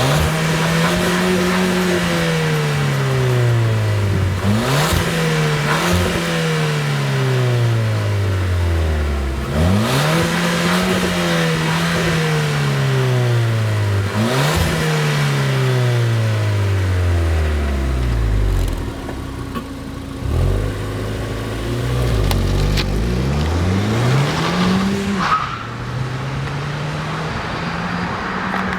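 Ford Fiesta ST's turbocharged 1.6-litre four-cylinder engine running through a COBB cat-back exhaust while being driven. The exhaust note sinks slowly in pitch over several seconds, then jumps sharply back up, several times over, and is lower and more uneven near the end.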